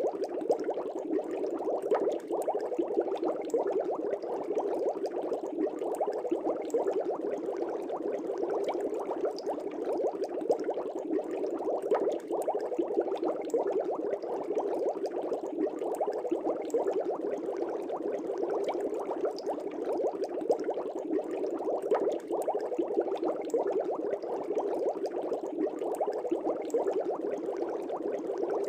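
Fish tank air bubbles bubbling steadily through the water, a constant dense stream of small pops and gurgles.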